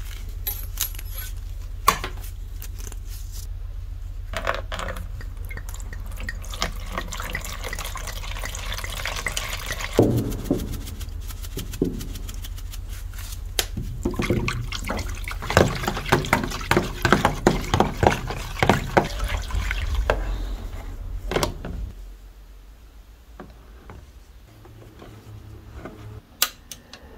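Water in a plastic tub being swished and stirred by hand, with splashes and small clinks of handling that are busiest in the middle, as the electrolysis bath for rust removal is prepared. A steady low hum runs underneath and drops away near the end.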